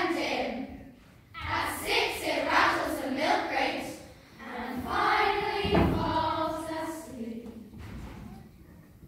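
Large girls' choir singing in phrases with short breaths between them, a thud about six seconds in, the singing tailing off near the end.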